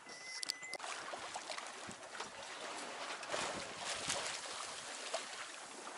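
Water rushing and splashing along the hull of a Hurley 22 sailboat under sail, a steady wash with small irregular splashes.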